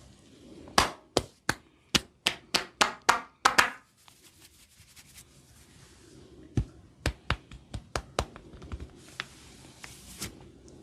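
A barber's hand slaps and taps of a head massage: a quick run of about ten sharp slaps, speeding up, then after a pause a second run of about seven slightly softer ones and two single taps near the end.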